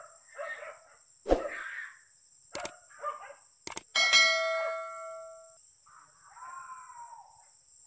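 Hunting dogs barking and yelping in short bursts while on the trail of wild boar. About four seconds in, a few sharp clicks and a ringing bell chime come from a subscribe-button sound effect.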